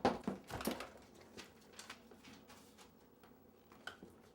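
A few light knocks and clicks in quick succession at the start, then faint scattered ticks.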